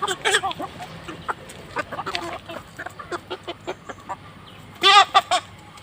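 Parrot-beak Aseel chickens clucking in short, scattered calls, with one loud two-part call about five seconds in.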